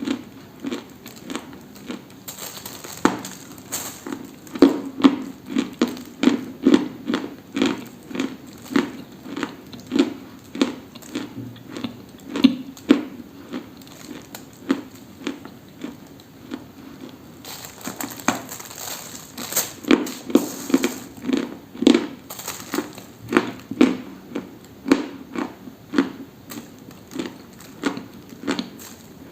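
Dry, brittle crunching close to the microphone, repeated at about two crunches a second, with a sparser stretch about halfway through.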